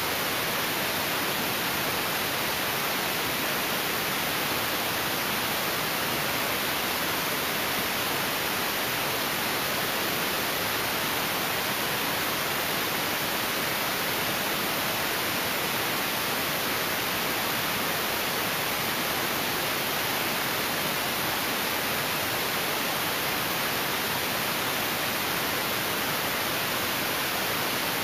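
Steady, unchanging hiss like static or white noise, with no rise, fall or rhythm.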